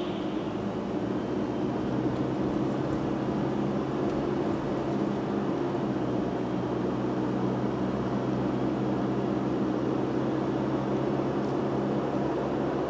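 A car's engine running steadily with tyre and road noise while driving, heard from inside the cabin.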